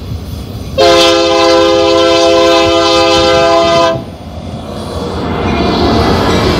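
Locomotive air horn sounds one long multi-tone chord of about three seconds, then the lead Union Pacific diesel locomotive passes close by, its rumble and wheel noise on the rails growing louder.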